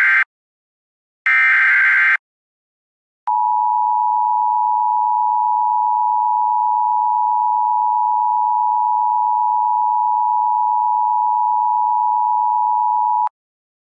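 Emergency Alert System tones. The end of one short SAME digital header burst is followed by a second burst about a second in. After a brief pause the two-tone EAS attention signal holds steady for about ten seconds and cuts off abruptly, the signal that an alert message is about to be read.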